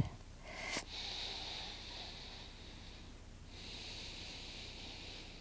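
A woman taking slow, deep breaths, quiet and airy: one long breath, a short pause just past the middle, then a second long breath. A faint click comes just before the first breath.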